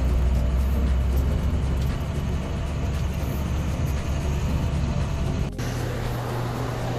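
Semi truck's diesel engine running with a steady low rumble, heard from inside the cab as the truck rolls slowly. About five and a half seconds in it cuts off abruptly, and a steady low mechanical hum takes over.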